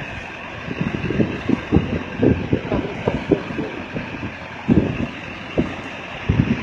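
Caterpillar backhoe loader's diesel engine running as it wades through a fast-flowing flooded river, over the steady rush of the water. Irregular low thumps of wind buffet the microphone.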